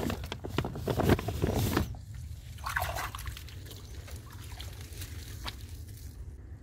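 Plastic sack crinkling and rustling as a wet tilapia is pushed into it, for about the first two seconds. Then quieter, wet handling of a dripping cast net among reeds.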